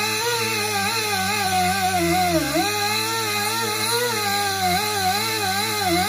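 Air die grinder spinning a buffing wheel against a tire's inner liner, its whine wavering in pitch throughout and dipping briefly about halfway through. It is buffing the rubber around a puncture to prepare it for a patch.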